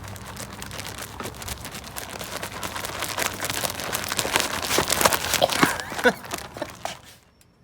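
A bag holding crappie fillets and seasoned batter mix being shaken to coat the fish, a rustling rattle that grows more vigorous and then stops suddenly about seven seconds in.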